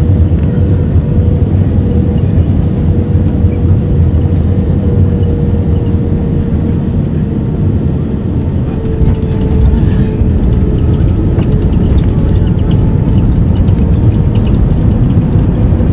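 Jet airliner cabin noise during landing and rollout: a steady low rumble of engines and rushing air with a faint steady whine. The sound eases slightly about halfway through and swells again a couple of seconds later as the spoilers are up on the runway.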